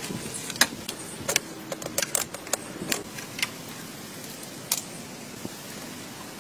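Sharp metallic clicks and clinks of car parts being handled as the radiator is lifted out of a rusted engine bay. They come close together in the first three seconds or so, with a single click near the end.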